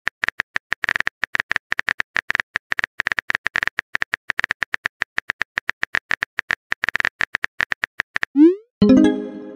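Rapid typing-click sound effect, about ten clicks a second, running for about eight seconds. Near the end it gives way to a short rising swoop and a pitched message-alert chime.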